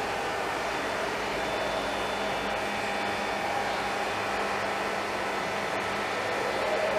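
Steady machine hum and hiss, unchanging throughout, with a few faint steady tones running through it.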